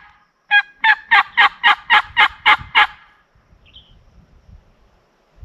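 A turkey call sounding a loud run of about ten sharp, evenly spaced yelps, lasting a little over two seconds. It is the hunter calling to get a gobbler to answer. Later, a small bird chirps faintly once.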